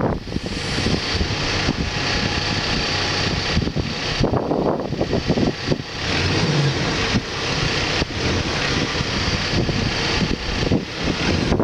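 Backhoe's diesel engine running steadily.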